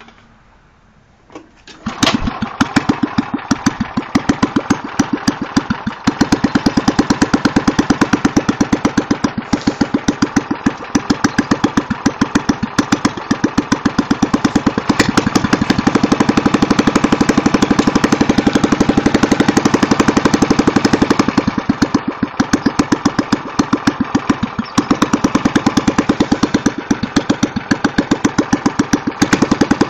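The 5-horsepower Tecumseh engine on a Jacobson Imperial 26 snowblower catches about two seconds in and keeps running through a rusted-out muffler, its firing pulses loud and fast with a slight sag in level a little past the middle. Cold start on a reluctant idle, which the owner suspects comes from the engine being low on gas.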